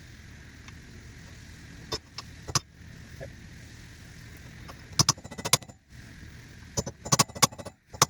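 Hammer blows on metal: two single strikes, then quick clusters of several. They are staking the torqued rear axle nut's collar down into the spindle with a flat-edged piece of metal.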